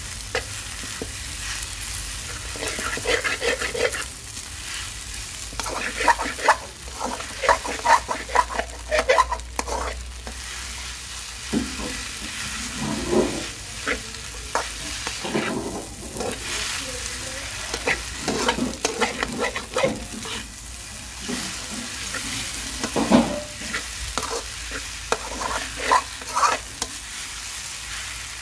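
Spatula scraping and tossing wide rice noodles with egg around a hot wok, over a steady sizzle of frying. The scrapes and clatters come in irregular clusters.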